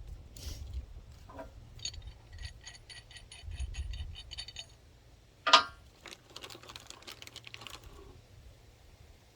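Steel D-ring shackle hardware being handled and fitted to a winch bumper's bracket: a run of quick, ringing metal clicks, a single sharp metal clank about five and a half seconds in, then more light clicking.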